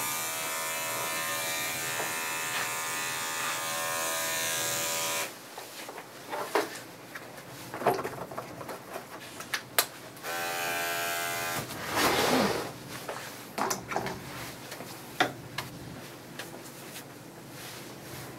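Electric dog grooming clipper running with a steady buzz, then switched off suddenly about five seconds in. It runs again for a second or so about ten seconds in. In between and afterwards there are scattered clicks and knocks, and a brief louder rustle around twelve seconds.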